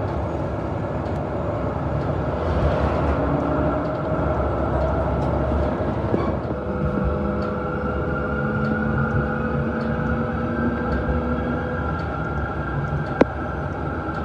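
Melbourne tram running along its street track, heard from inside the car: a continuous low rumble with steady whining tones over it, and a single sharp click near the end.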